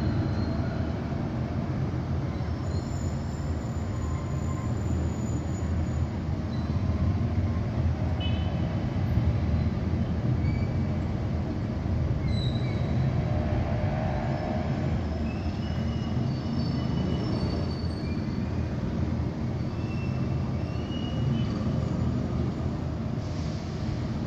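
Steady low rumble of distant city traffic, with brief faint high-pitched squeals scattered through it.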